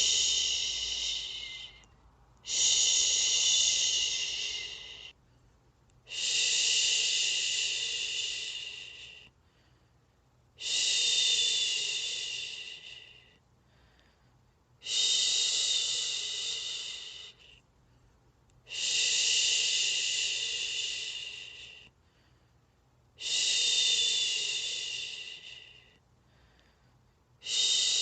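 A person shushing a baby to sleep: long, drawn-out 'shhh' sounds, each lasting two to three seconds and fading off at the end, repeated about every four seconds with short breathing pauses between.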